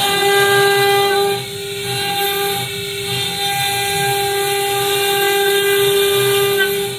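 Stone CNC router's spindle running at speed with a steady high whine while its bit engraves a dark stone slab under water coolant, with a rough grinding rumble beneath; the level dips briefly a little over a second in, then holds.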